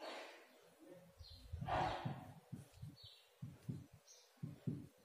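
Marker pen scratching and squeaking on a whiteboard in short strokes as words are written, with a few brief high squeaks.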